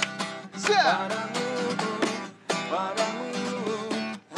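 Acoustic guitar strummed in chords, an instrumental gap between sung lines of a slow pop song.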